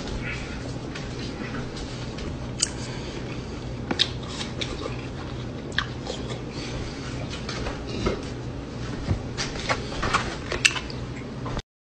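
A person biting into and chewing juicy chunks of fruit, with scattered crisp crunching and smacking clicks over a low steady hum. The sound cuts off just before the end.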